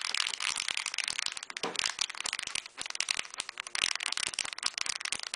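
Modified Bedini pulse motor running, giving a dense, irregular crackling rattle of rapid clicks.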